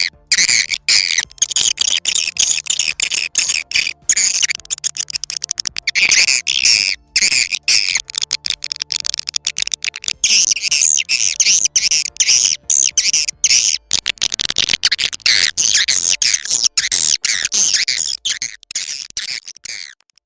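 Swiftlet lure-call recording: a dense, rapid, high-pitched twittering of many edible-nest swiftlet chirps, with brief breaks about 7 and 14 seconds in. It is a call sound played to draw swiftlets into a nesting house.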